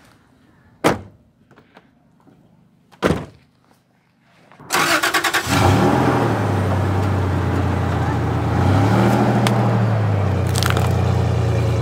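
Two sharp knocks as the pickup's doors are shut, then, about four and a half seconds in, the pickup truck's engine is cranked by the starter, catches and settles into a steady idle, with a brief rise in revs around nine seconds in. It is heard close to the tailpipe.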